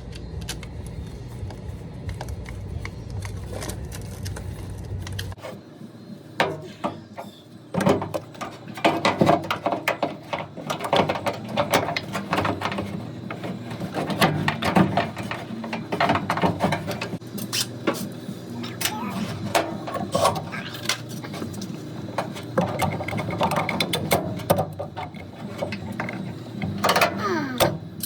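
Hand-fitting a washer drain pump: clicks, knocks and rattles of screws, tools and plastic parts, with scraping. A low hum runs for about the first five seconds and then stops.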